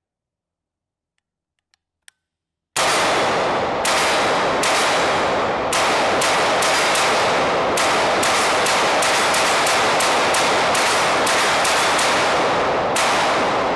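AR-15 rifle firing a long string of about twenty semi-automatic shots, starting a few seconds in, slowly at first and then quicker at up to about three a second. The shots are loud, and each one rings out in a long echo off a big empty warehouse hall that fills the gaps between them.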